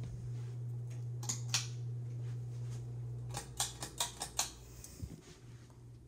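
Harbor Breeze Tilghman II 52-inch ceiling fan running with a steady low hum. Sharp clicks sound twice about a second in, then a quick run of about six clicks just after the middle.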